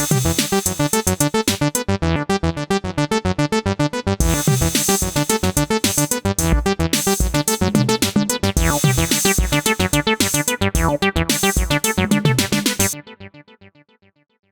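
Synthesizer bass line playing a fast sequenced pattern of rapid repeated notes, with a bright hissy layer over some passages. It stops about thirteen seconds in and dies away in fading echoes over a second or so.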